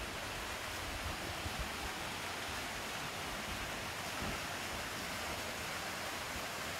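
Steady rushing hiss of water flowing over rocks in a gorge, with uneven low wind buffeting on the microphone.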